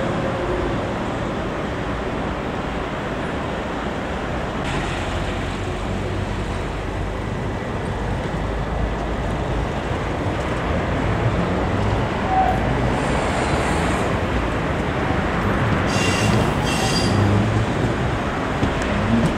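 Tram running on street track, a steady rolling rumble of wheels on rail, with two short high-pitched squeals near the end.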